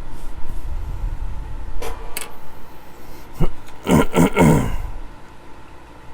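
Small plastic and metal parts of a multimeter being handled and worked apart: a few sharp clicks, then a short scraping, creaking burst of plastic about four seconds in, over a low rumble of handling noise.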